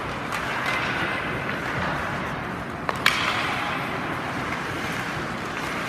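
Ice hockey play: skate blades scraping across the ice under a steady hiss, with a few sharp clacks of sticks and puck, the loudest about three seconds in.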